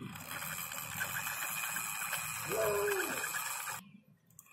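Plastic wheels of a toy truck rolling on a rough concrete floor, a steady scraping rumble that stops abruptly near the end. A single short falling call, like a dove's coo, sounds a little past the middle.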